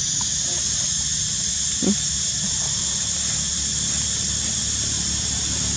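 A macaque gives one short call about two seconds in, over a steady high hiss.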